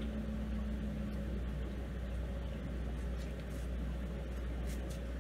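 Steady low machine hum, with a higher hum note that fades out about a second and a half in.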